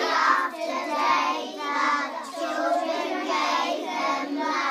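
A group of young children reading aloud together in unison, in a sing-song chant.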